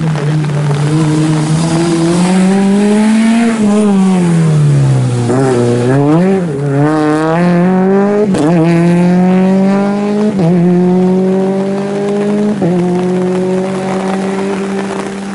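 Rally car engine at full load past the spectators. Its note falls and wavers through the bend, then climbs as the car accelerates away, dropping sharply at three upshifts about two seconds apart.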